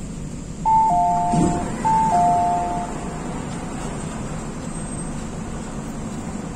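A falling two-note chime sounds twice, high then low, on board an MTR Tung Chung line K-Train, with a brief low knock between the two chimes, over the train's steady running noise.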